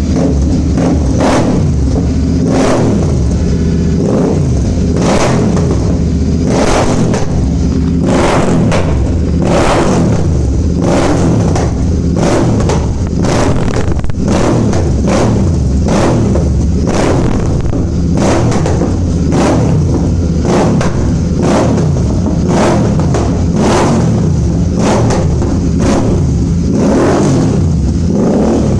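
Royal Enfield 650 parallel-twin engine revved over and over through a custom exhaust: a deep bass exhaust note broken again and again by sharp crackles.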